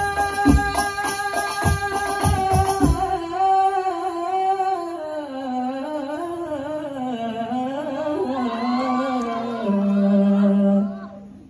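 Banjari sholawat: a male lead voice singing over a group of terbang frame drums. The drums stop about three seconds in, and the voice carries on alone in a winding, ornamented line. It ends on one long low held note that breaks off near the end.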